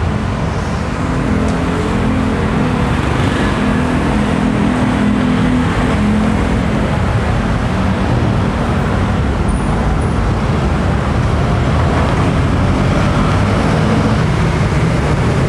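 Steady motor-vehicle noise, a continuous rumble and hiss like road traffic, with no clear events.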